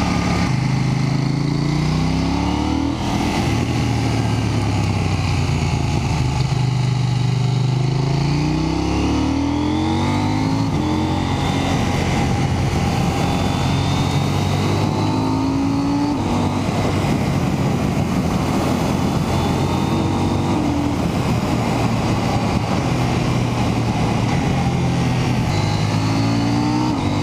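2018 KTM 790 Duke's 799 cc parallel-twin engine revving up and easing off again and again while riding, heard from onboard with steady wind noise.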